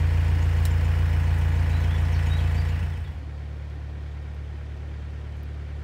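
Narrowboat engine running steadily as the boat cruises, a deep low drone. About three seconds in, the sound cuts and drops to a quieter, more distant engine drone.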